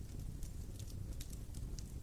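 Wood fire burning, with a steady low rumble and irregular sharp crackles and pops of burning wood.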